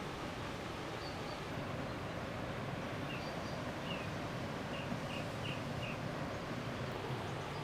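Steady outdoor forest ambience: an even hiss with a few faint, short bird chirps from about three to six seconds in.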